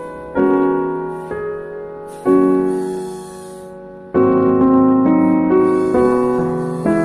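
Background piano music: slow chords struck about every two seconds, each ringing out and fading.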